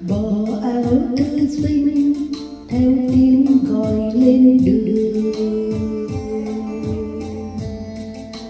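Song playing, with a voice holding long sung notes over a steady drum beat with hi-hat ticks.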